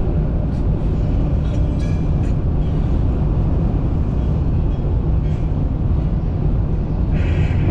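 Steady low road rumble and engine hum inside a car cabin at highway speed.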